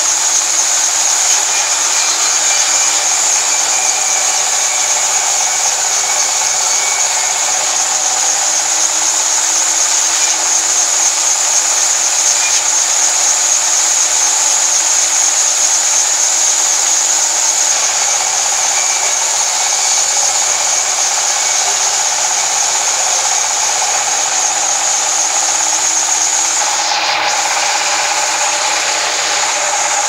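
Sawmill band saw running steadily and cutting lengthwise through a coconut palm log on its carriage: a loud, unbroken machine noise with a steady high whine.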